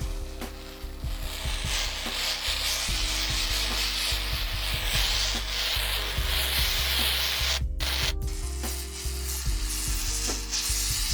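A continuous rubbing, scraping noise of material being worked by hand, starting about a second in and briefly cutting out twice near the middle, over background music.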